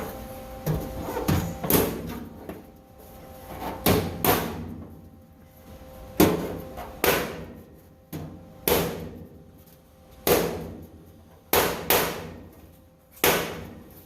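Hammer blows on a sheet-metal floor pan, about a dozen sharp knocks with a brief ring after each, some coming in quick pairs, as the panel is knocked down tight before welding.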